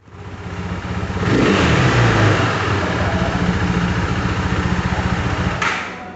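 KTM RC390's single-cylinder engine running, revved up once about a second in, then held steady with an even pulse until the level drops near the end.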